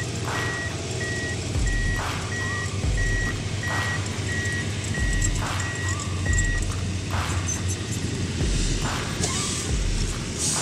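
Backup alarm on heavy equipment beeping steadily, about three beeps every two seconds, that stops about two-thirds of the way in. Background music with a slow steady beat plays throughout.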